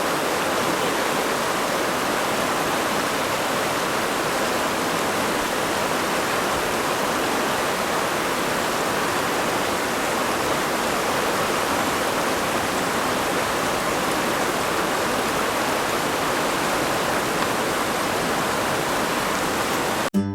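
Steady rushing of a flowing river, an even wash of water noise that cuts off suddenly near the end.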